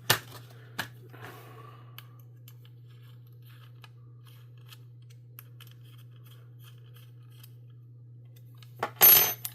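Hand tools being handled at a bench: a sharp metal click at the start and another just after, faint small ticks as a wrench works on scope-ring screws, and a louder metallic rattle about nine seconds in. A steady low hum runs underneath.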